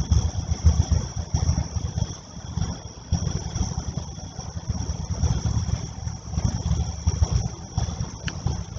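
Gusty wind buffeting the microphone, an uneven low rumble that swells and eases from moment to moment. Night insects chirr steadily in two high tones behind it.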